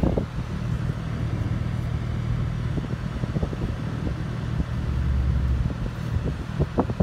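Car cabin noise while driving slowly: a steady low rumble of engine and tyres, heard from inside the car, with a deeper swell about five seconds in.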